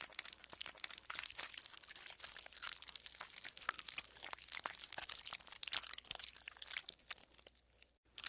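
Green slime being worked by hand, squelching and squeaking with a dense run of small crackly pops. It breaks off briefly near the end.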